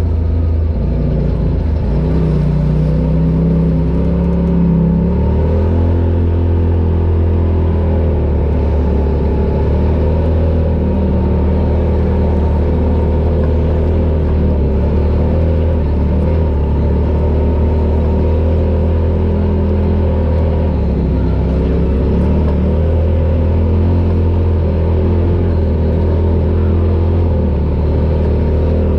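Polaris RZR Pro XP side-by-side's engine running while driving. The engine note shifts in pitch over the first few seconds, then holds fairly steady.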